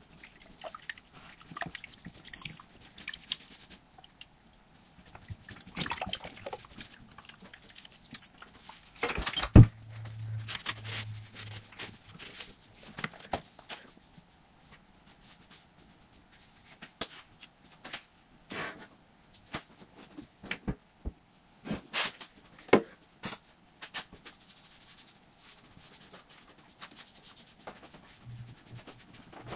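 Hand tools and parts handled on the open transmission case of an Allis-Chalmers 5015 tractor: scattered clicks, scrapes and knocks, the loudest a sharp knock about nine and a half seconds in.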